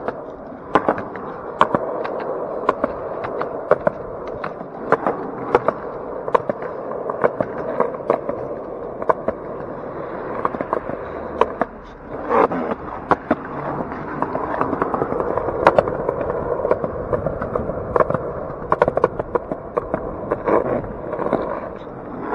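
Skateboard wheels rolling over concrete and asphalt: a steady rumble, broken by frequent sharp clacks as the wheels cross cracks and slab joints in the pavement.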